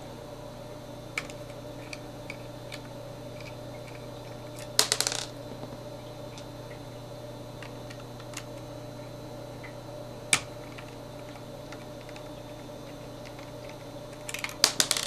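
Small metal clicks and rattles of a screwdriver and tiny screws being worked out of a Mac mini's hard-drive mounting: scattered faint ticks, a quick cluster of clicks about five seconds in, one sharp click around ten seconds and another cluster near the end, over a faint steady hum.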